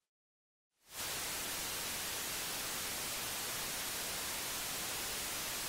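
Television static hiss for a retro TV logo, rising quickly to full level about a second in and then holding steady and even.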